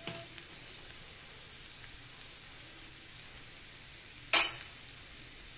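Chickpeas frying in a steel kadhai, a steady soft sizzle. About four seconds in, one sharp clink.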